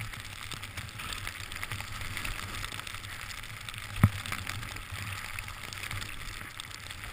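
Steady hiss of sliding down a snowy slope, with wind rumbling on a helmet-mounted camera's microphone and a single knock about four seconds in.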